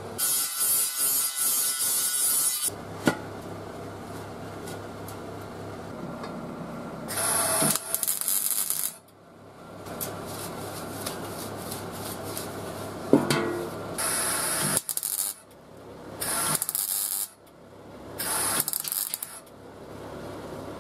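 About the first three seconds, gloved-hand abrasive scrubbing on the cut steel rim of a gas canister, cleaning it for welding. Then four short bursts of MIG welding crackle as tack welds join the two halves of the canister, with a steady low hum between them.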